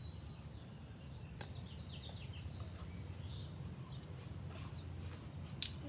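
Insects trilling steadily at one high, even pitch, like crickets, over a low background rumble. A few faint ticks, and one sharp click near the end.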